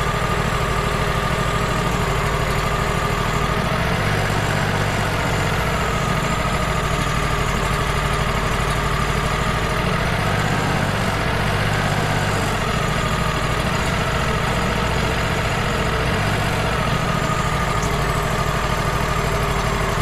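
Wood-Mizer LT35 sawmill's engine running steadily, driving the hydraulic pump while the log turner and clamps move the log. A whine rises and falls a few times as the hydraulics take load.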